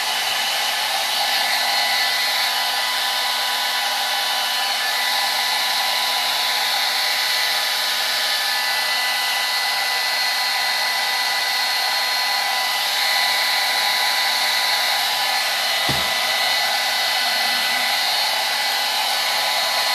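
Handheld hair dryer running steadily: an even rush of air with a constant motor whine, used to dry a craft-covered bottle. One soft bump sounds briefly about 16 seconds in.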